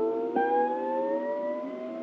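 An engine accelerating, its pitch climbing slowly and steadily, with a second, higher engine note cutting in about a third of a second in.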